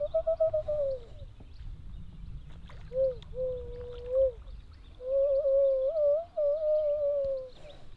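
Common loon calling: three drawn-out wailing notes. The first has a fast quaver, and the last and longest wavers up and down in pitch.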